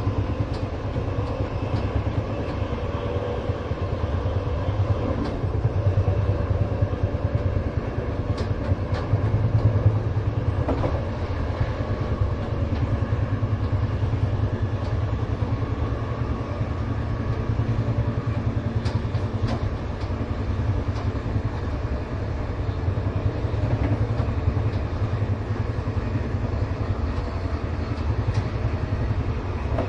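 Train running along the track: a steady low rumble of wheels on rails, with scattered faint clicks.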